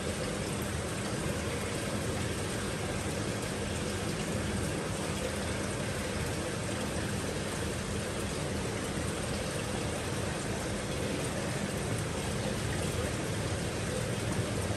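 Steady rush of falling water, with a faint low hum underneath.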